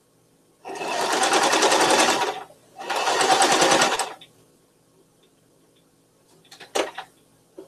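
Electric home sewing machine stitching in two runs, the first about a second and a half, the second about a second, with a short pause between. A few light clicks follow near the end.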